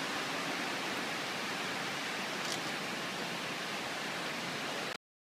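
Steady hiss of background noise with no engine running, a single faint tick about two and a half seconds in. The sound cuts out to dead silence just before the end.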